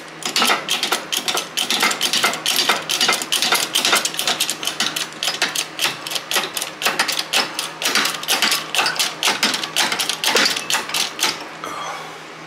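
Hydraulic shop press being pumped by hand in quick short strokes: a fast run of sharp metallic clicks, about four a second, as the ram pushes a U-joint bearing cap into the driveshaft yoke. The clicking stops about eleven and a half seconds in.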